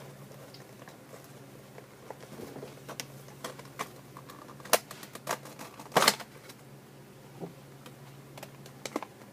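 Action-figure toy packaging being handled and opened by hand: scattered clicks and crackles, with two louder snaps about five and six seconds in.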